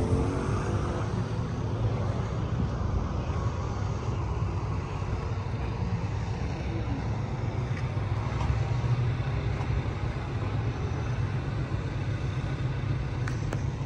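Steady low background rumble with no distinct events, like outdoor vehicle noise.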